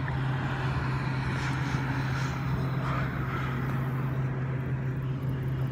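A motor running steadily, with a constant low hum.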